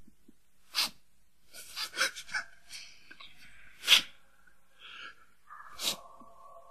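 A man weeping: four sharp, gasping sobs about two seconds apart, the loudest about four seconds in, with shaky breathing between. Near the end a steady held tone of music comes in.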